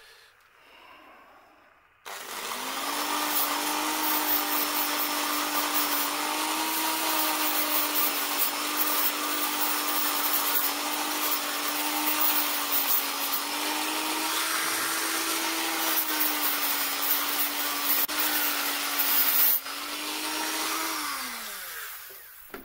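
Small electric power tool switched on about two seconds in, its motor whining steadily while it grinds a burr off a part, then spinning down with a falling pitch as it is switched off near the end.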